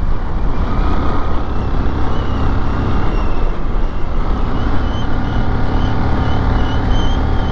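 Motorcycle riding along at steady speed: the engine running under a loud, even rush of wind and road noise.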